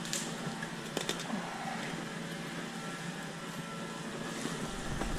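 Steady background hiss, with a few faint light clicks in the first second or so.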